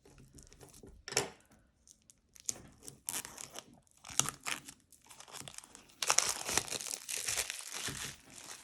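Plastic wrapping around a tarot card deck being torn open and pulled off, crinkling in irregular bursts, loudest and most continuous about six seconds in.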